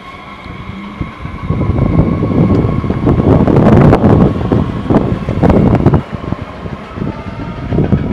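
Steady hum of a standing DB class 430 electric S-Bahn train's equipment, with loud, uneven rumbling of wind on the microphone from about a second and a half in.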